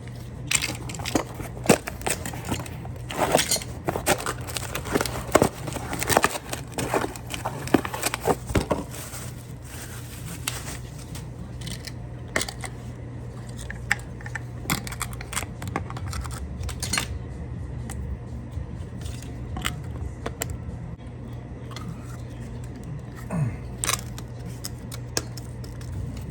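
Hands working on washer drain pump parts: clicks, scrapes and rattles of plastic and metal, busy for the first several seconds and then sparser, over a steady low hum.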